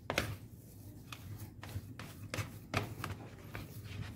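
A spatula stirring thick, crumbly fishing-bait dough in a plastic basin: irregular scrapes and soft taps as it drags through the dough and knocks the sides of the bowl.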